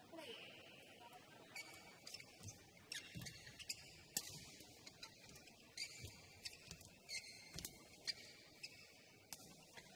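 Faint badminton rally: irregular sharp shuttlecock strikes and squeaks of court shoes on the mat.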